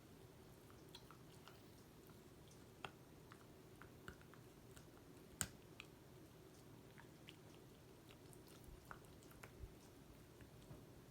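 Dog chewing a treat: faint, irregular crunching clicks, the loudest about five and a half seconds in, over a low steady hum.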